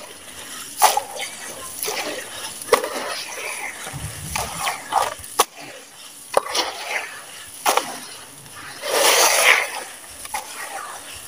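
Hands squeezing and crumbling wet, gritty cement and gravel chunks in a plastic tub of water: irregular wet crunches, gritty clicks, squelches and small splashes. About nine seconds in, a longer gritty crumble as a handful breaks apart and falls back into the tub.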